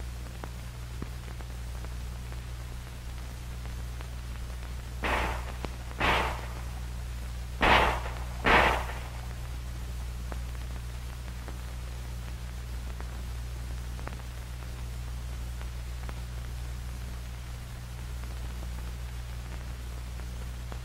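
Two double shots from M1911 .45 ACP pistols, the shots in each pair about a second apart, fired a few seconds in over a steady background hiss and hum.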